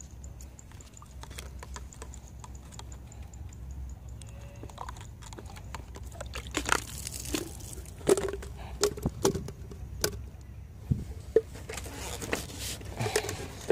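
Handling noise from a plastic-bottle fish trap and its line: scattered clicks, knocks and crinkles of the plastic, thicker in the second half, over a low steady rumble.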